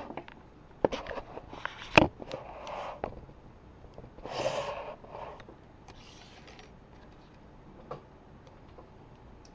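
Handling noise from bobby pins and small hand tools such as pliers: scattered clicks, with a sharp click about two seconds in, and short bursts of rustling. One breathy burst about four and a half seconds in.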